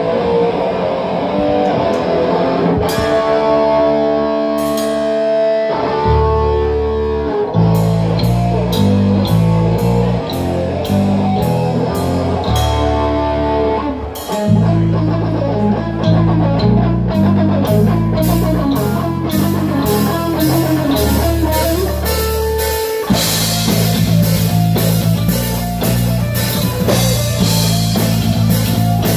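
Live heavy metal band: distorted electric guitars and bass guitar with a drum kit. It opens on sustained ringing chords, then about six seconds in the band drops into a low, chugging riff with steady drum hits, and cymbals crash almost continuously near the end.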